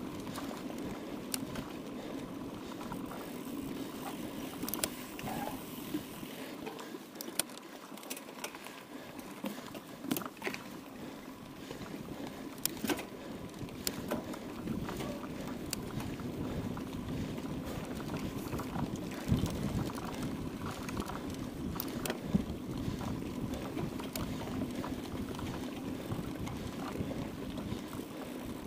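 Mountain bike ridden over rough trail: steady tyre and riding noise with frequent sharp clicks and knocks of the bike rattling over bumps.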